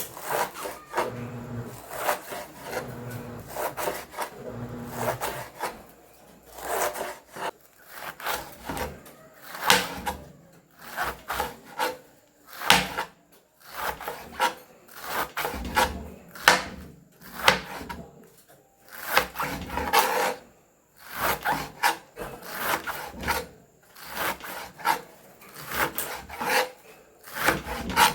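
Knife slicing collard greens into thin shreds on a cutting board, in irregular runs of quick strokes with short pauses between them.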